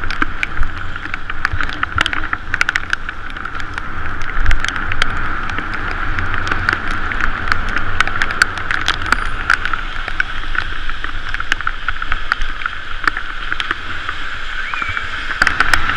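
Bicycle rolling on rain-wet city pavement: a steady hiss of tyres on the wet road and wind, with many small clicks and rattles throughout and one heavier thump about four and a half seconds in.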